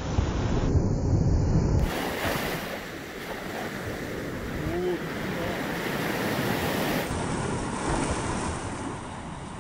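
Sea surf breaking and washing up the beach around the legs of a wader, with wind rumbling on the microphone.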